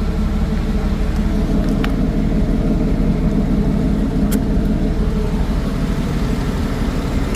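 Jeep Cherokee XJ engine idling steadily while it drives its AC compressor, converted to pump air for tire inflation, with a couple of faint clicks.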